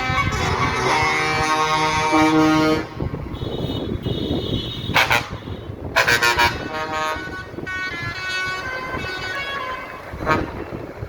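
Trucks going by with engines running, sounding their horns in long, overlapping blasts for the first few seconds, then further horn notes. Short loud bursts come about five and six seconds in.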